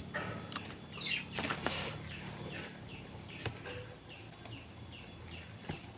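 A flock of budgerigars chirping and chattering, short chirps repeating a few times a second, with a few sharp clicks in the first half.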